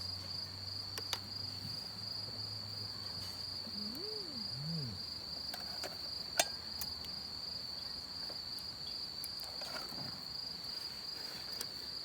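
A steady high insect trill with an even pulse, running unbroken. A single sharp click about six seconds in.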